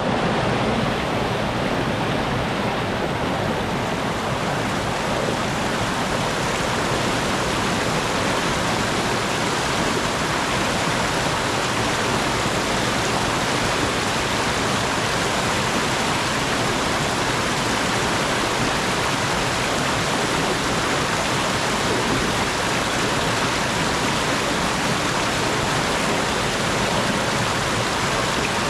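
Abundant clear mountain stream flowing down through a gorge in small falls: a steady, unbroken rush of water.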